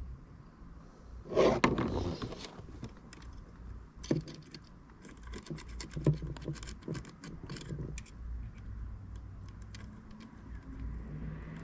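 Hands handling small hard objects and parts: a loud scrape or rustle about a second in, then a quick run of small clicks and taps.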